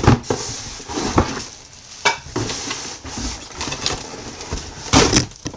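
Plastic wrapping crinkling as wrapped glass slow-cooker lids are pulled out of foam packing. Scrapes and knocks from the packing are heard throughout, the loudest about five seconds in.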